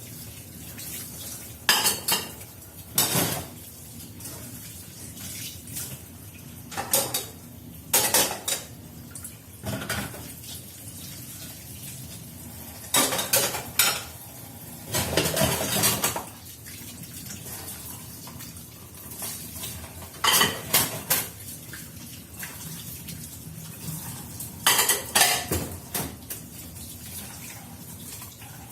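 Dishes and cutlery clinking and clattering while being washed at a sink, in irregular bursts of knocks and rattles a second or several apart, with water faintly in the background.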